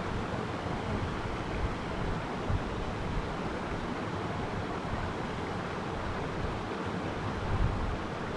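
Wind buffeting the microphone: a steady rushing noise with a gusty low rumble.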